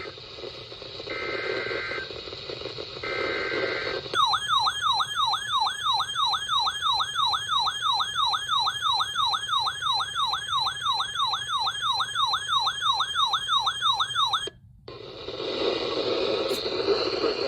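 Emergency Alert System broadcast over radio audio: two short data bursts of the digital alert header, then a sweeping alert tone repeating about three times a second for about ten seconds. The tone cuts off abruptly, and after a brief gap the noisy radio audio returns.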